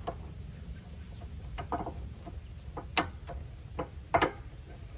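Weigh Safe trailer coupler lock being fitted under a trailer coupler and handled with its key: scattered metal clicks and knocks, the sharpest about three seconds in and a cluster about four seconds in.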